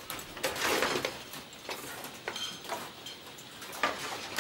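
Kitchen clatter: a short noisy scrape or rush about half a second in, then scattered knocks and clicks of pans and utensils, with a sharp knock near the end.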